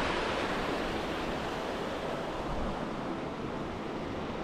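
Shallow rocky stream running, a steady rush of water over stones.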